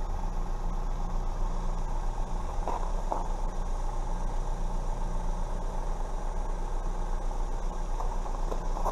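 A vehicle engine idling steadily, a low even hum under a constant hiss.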